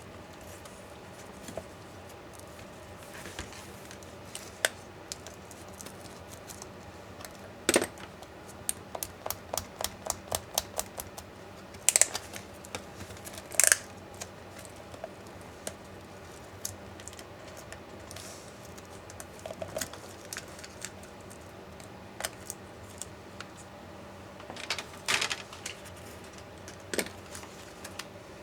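Irregular small clicks and taps of laptop parts being handled and pried apart, with a quick run of clicks about a third of the way in and a few louder snaps.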